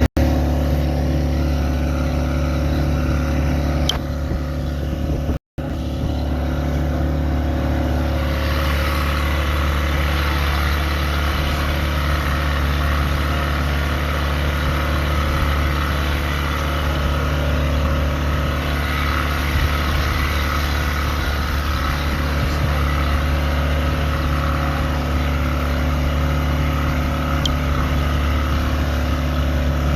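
Boat engine running steadily at an even pitch, with a rushing hiss that grows louder about eight seconds in. The sound cuts out briefly about five seconds in.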